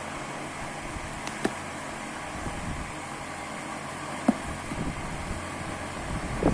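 Steady background hum and hiss, with a few sharp clicks and soft knocks and rustles of a phone box and its packaging being handled, busiest near the end.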